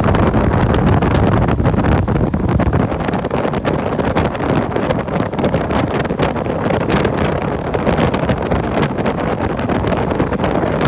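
Wind rushing over the microphone of a camera on a moving motorbike, mixed with the bike's engine and road noise: a steady, loud rush with frequent small crackles.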